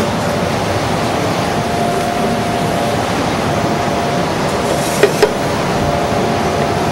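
Steady whoosh of restaurant kitchen ventilation with a faint hum, and two sharp knocks a quarter-second apart about five seconds in, as a utensil strikes the sauté pan while the mirepoix is stirred.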